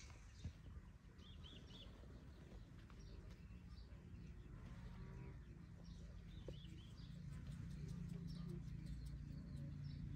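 Quiet outdoor background with small birds chirping a few short times, about a second in and again around the middle, over a faint low background noise.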